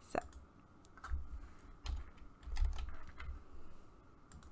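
Typing on a computer keyboard: a handful of irregular keystrokes, some landing with a dull knock.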